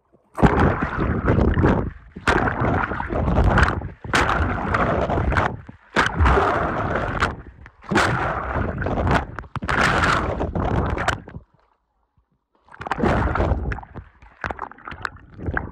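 Water splashing and gurgling right at a phone's microphone as a swimmer strokes through a river, in repeated surges of a second or two each, with a short break about three-quarters of the way through.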